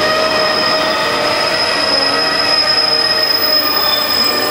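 Blue sleeper-train coaches rolling along the platform track, their wheels squealing in several steady, high, ringing tones over the rumble of the running gear.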